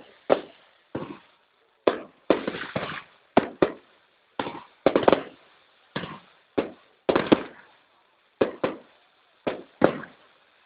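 Aerial fireworks shells bursting in a long irregular series of sharp bangs, about one or two a second, some followed by a short crackle.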